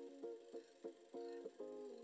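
Quiet background music of plucked strings, a light melody of single notes picked about three times a second.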